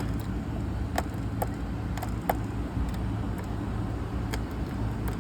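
Steady low rumble of outdoor background noise, with a handful of light, sharp clicks and taps scattered through it.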